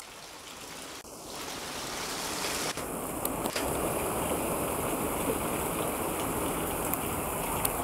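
A steady rushing noise, like water or wind, that builds over the first two or three seconds and then holds.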